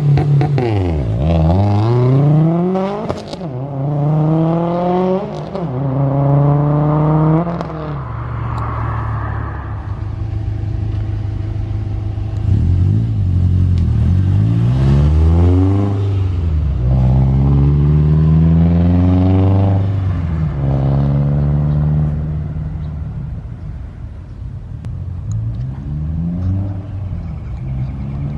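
Tuned 2016 Subaru WRX STI's turbocharged flat-four, with equal-length headers, accelerating hard through the gears: the engine note climbs in pitch, falls back at each upshift and climbs again, three pulls in quick succession. After a steadier stretch around ten seconds in, it climbs through the gears again several more times.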